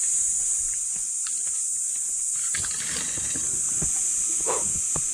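Steady high-pitched insect drone, with a few soft knocks and rustles scattered through it.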